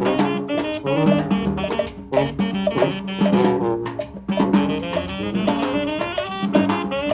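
Brass band playing live: horn lines over drums, with a brief drop about four seconds in before the horns come back in.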